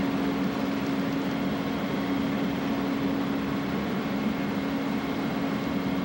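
Steady engine drone, holding one low pitch without change, over an even rushing hiss of wind and sea.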